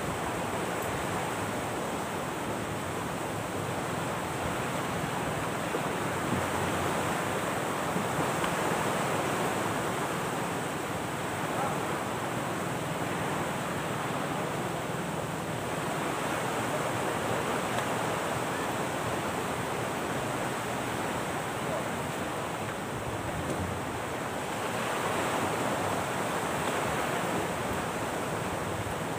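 Steady rush of surf washing on a sandy shore, mixed with wind, swelling and easing slowly every several seconds.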